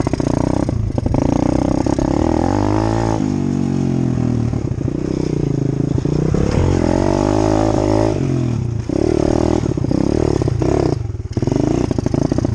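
Dirt bike engine revving as it is ridden, its pitch climbing and falling with the throttle, with a few brief throttle-offs.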